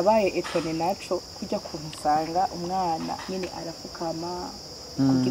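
Crickets chirring in a steady, unbroken high-pitched band behind a woman talking, her voice the louder sound.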